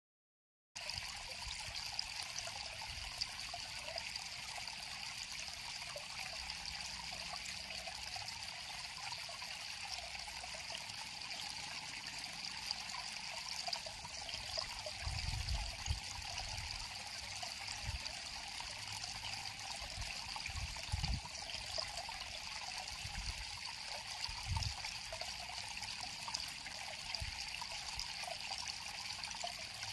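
River water flowing and trickling over rocks, a steady, even rush with a few soft low thumps now and then. It starts under a second in after a brief silence.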